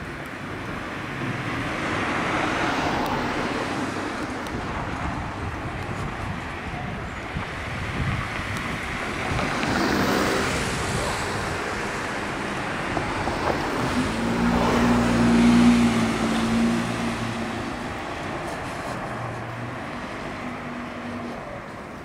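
Road traffic on a narrow city street: motor vehicles passing one after another, each swelling and fading, the loudest about fifteen seconds in with a low engine drone.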